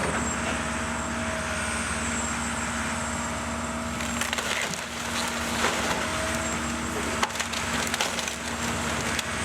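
A wooden house being torn down by heavy machinery: a steady engine hum runs underneath while the timber cracks and splinters, with sharp cracks coming thicker from about four seconds in.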